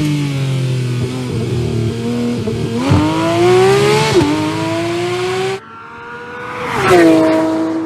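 Porsche 911 GT3 RS's naturally aspirated flat-six being revved: the pitch climbs and drops several times, rising sharply about three seconds in. The sound cuts off suddenly about five and a half seconds in, then swells again near the end.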